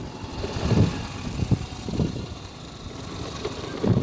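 A vehicle's engine running with a low, uneven rumble.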